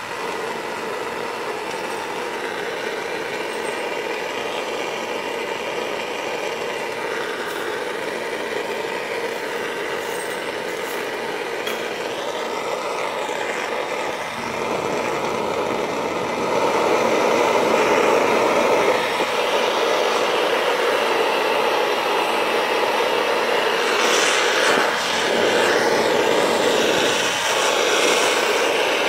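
Acetylene torch with a number 4 tip burning with a steady rushing hiss as it heats scrap sterling silver and casting grain in a crucible to melt them. It grows louder about halfway through.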